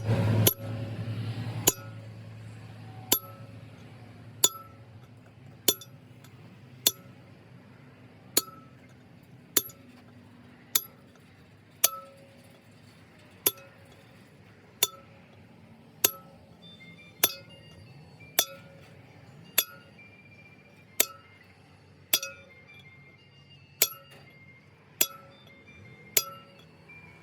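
Steady, unhurried hammer blows on steel, about one a second, each strike ringing briefly with a metallic tone.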